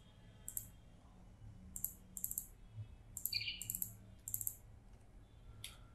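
Computer keyboard being typed in short, faint clusters of key clicks, several keystrokes at a time with pauses between, over a low steady hum.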